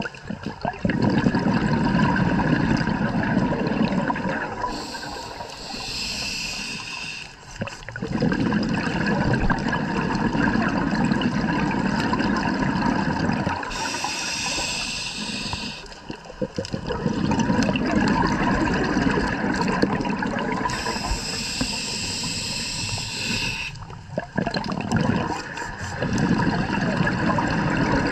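Scuba regulator breathing underwater: a short hiss on each inhale, then a longer rush of exhaled bubbles. The cycle repeats about every eight seconds.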